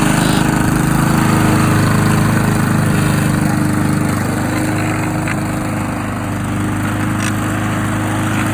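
Petrol lawn mower engine running steadily under load.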